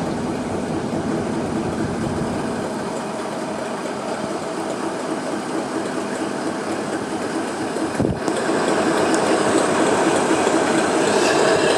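British Rail Class 60 diesel locomotive's eight-cylinder Mirrlees engine running as the locomotive moves slowly along the track. About 8 seconds in there is a sharp knock and the sound grows louder, with a faint high wheel squeal near the end.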